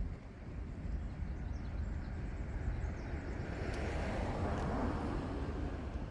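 Outdoor ambience: a steady low rumble, with a rush of noise that swells and fades a few seconds in, as of something passing.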